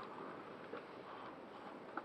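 Quiet handling noises from unpacking a cardboard box, with one light click near the end.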